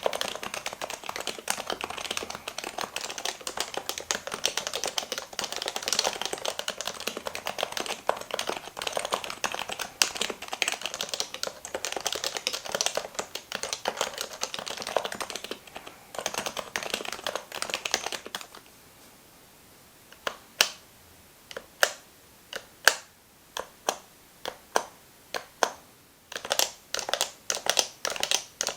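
Typing on an unlubricated HHKB Professional 2 keyboard with Topre electrostatic capacitive switches. Fast continuous typing runs for about eighteen seconds and is followed by a short pause. Separate single keystrokes then come about a second apart and quicken near the end.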